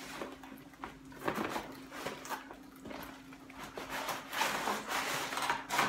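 Packaging being handled and opened: irregular rustling with a few light clicks and knocks, over a faint steady hum.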